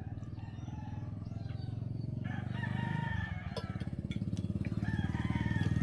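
A rooster crows once, about two seconds in, over an engine running with a rapid, steady low pulse that grows louder toward the end.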